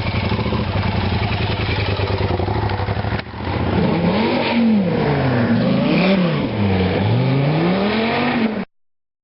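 Sports car engine running steadily, then, after an abrupt change about three seconds in, revved up and down three times, the pitch climbing and falling with each blip. The sound cuts off suddenly near the end.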